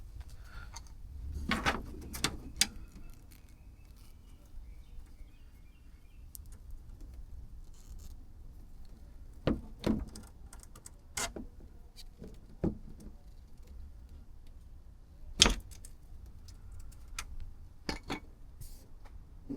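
Scattered sharp clicks and knocks of hands handling car trim parts and fasteners: a cluster about two seconds in, a pair near ten seconds, and the loudest knock about fifteen seconds in.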